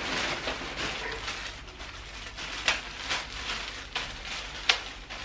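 Clear plastic packaging bags crinkling and rustling as clothes are handled and pulled out of them, with a few sharp crackles.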